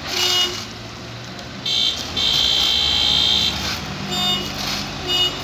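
A vehicle horn honking in several blasts, short ones with one long blast in the middle, over the low running of a diesel dump truck's engine.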